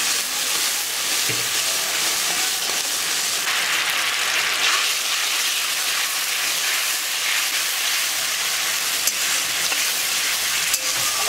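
Chilli and turmeric paste in water sizzling hard in hot mustard oil in a metal kadai: a steady loud hiss as the paste fries, stirred with a spatula that clicks lightly against the pan a couple of times near the end.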